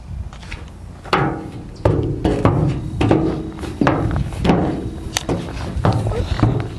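A toddler's hands and knees thumping on a coated steel playground deck, an irregular run of knocks, each with a brief metallic ring. The knocks start about a second in.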